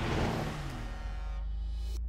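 Intro sting for a logo animation: music and sound effects, with a loud rush and falling sweeps over the first second and a half, then a steady low drone.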